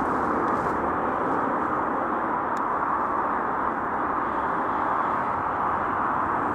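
Jet engine noise from a McDonnell Douglas MD-11F freighter's three GE CF6 turbofans as it climbs away after takeoff: a steady, even rushing sound with no rise or fall.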